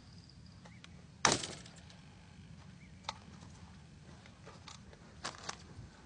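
A single shotgun shot about a second in, sharp with a short ringing tail, followed by a few faint clicks and knocks.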